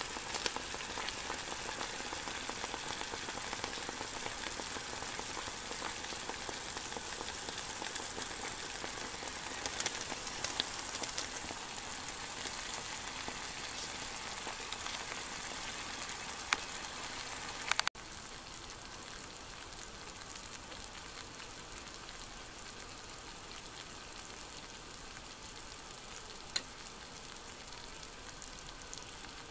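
Asparagus pieces sizzling in a stainless steel pan with a little water: a steady hiss with scattered small crackles and pops. The level drops abruptly and slightly about 18 seconds in.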